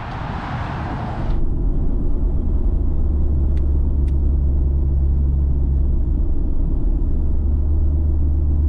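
Hummer H3 on the move: a steady low rumble of engine and road noise. About a second and a half in, a hissing rush of noise cuts off abruptly and the rumble grows louder.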